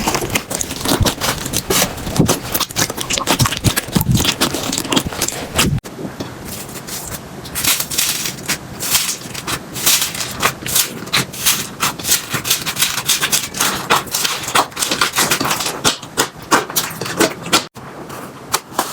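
Slime being squeezed and pressed by hand: a dense run of small crackles, clicks and sticky pops. The texture changes abruptly about six seconds in, going thinner with less low end, and changes again near the end.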